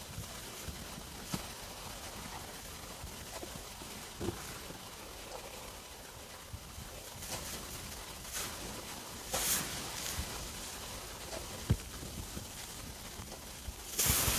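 Stomach rumbling while digesting after dinner: scattered short gurgles and squeaks over a steady hiss, with a louder burst of noise near the end.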